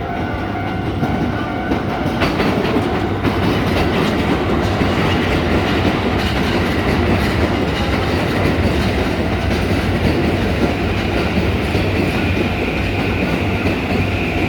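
A commuter train running past at a level crossing, wheels clattering over the rail joints with a steady rumble that builds over the first couple of seconds and then holds.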